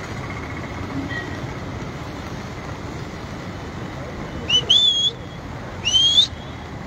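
Fast-flowing flooded river rushing steadily. A little past halfway, two short rising whistles ring out about a second apart.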